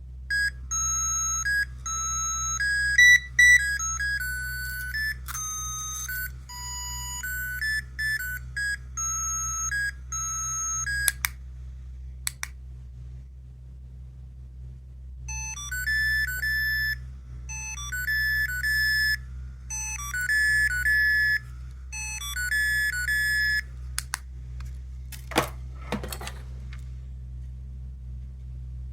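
Small electronic sound toy playing a beeping chip-tune melody of quick, stepped high notes, in two phrases with a pause between. A few sharp clicks come after each phrase.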